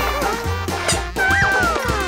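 Upbeat cartoon background music with a steady bass beat, and high sliding tones over it in the second half.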